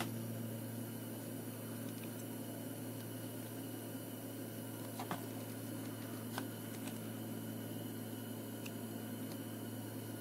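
A steady low hum over faint background noise, with a couple of faint clicks about halfway through.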